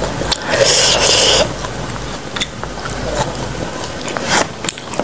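Close-miked eating sounds: fingers scraping and squishing through chunky rujak sambal in a stone mortar, with chewing of raw green banana. The loudest part is a hissy, crunchy noise lasting about a second, starting about half a second in, followed by small scrapes and clicks.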